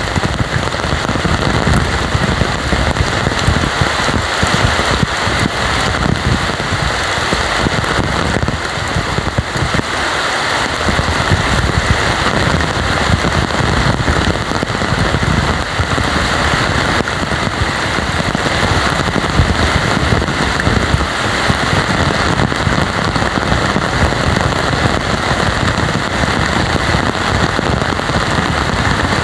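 Heavy tropical rain pouring steadily, with a dense patter of drops hitting the ground and nearby surfaces.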